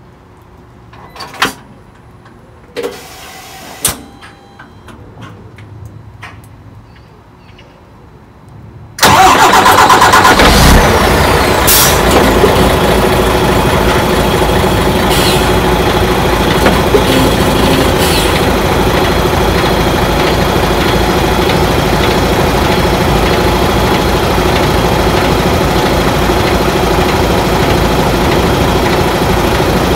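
A few faint clicks and knocks, then about nine seconds in the DAF XF 106's PACCAR MX-13 diesel engine starts with a sudden loud catch and settles into a steady idle.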